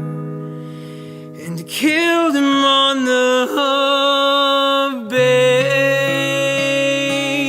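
Closing bars of an acoustic country song: a guitar chord rings out and fades, then long held melody notes with a wavering pitch and slides, over steady acoustic guitar strumming.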